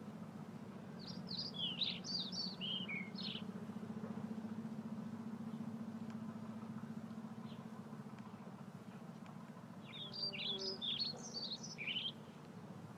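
A songbird singing two short phrases of quick high notes that fall in pitch, about nine seconds apart, over a steady low hum.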